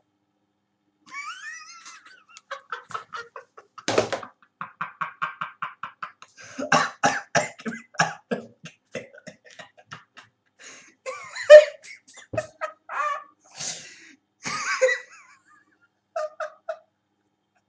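A person laughing hard in several fits of quick, rapid pulses, breaking into coughs, with one sharp loud outburst partway through.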